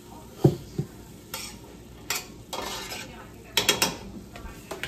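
Cookware clatter: a spoon stirring and scraping chopped carrots and celery in a stainless steel stockpot, with two dull knocks about half a second in and a quick cluster of sharp metal clinks in the second half.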